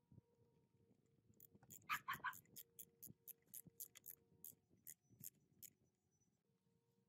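Screwdriver turning a screw into a plastic motorbike front fender: a run of sharp clicks, about three or four a second, starting a second or so in and spacing out before stopping near the end.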